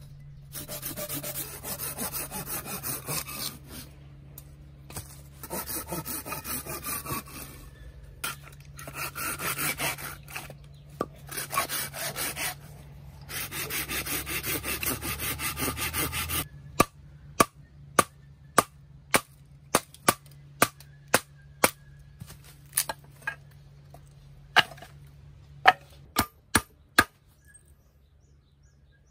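Wood being hand-sawn in several spells of quick back-and-forth strokes, then chopped with a run of sharp single blows, about two a second.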